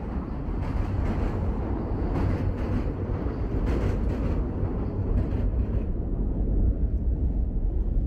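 Steady low rumbling outdoor street noise, getting a little louder near the end.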